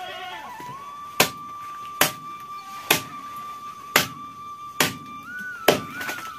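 A long knife chopping through chicken on a wooden chopping block: six sharp chops, a little under a second apart, over background music holding a steady note.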